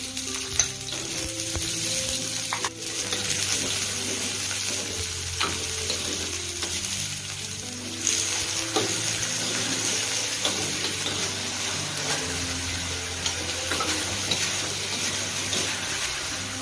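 Food sizzling steadily as it fries in hot oil in a pan, with a few short sharp clicks. Soft background music runs underneath.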